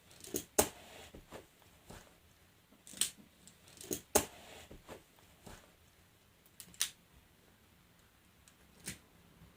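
Plastic magnetic building tiles clicking and snapping together as they are picked up and set in place: a handful of sharp clicks at irregular intervals, a second or a few seconds apart.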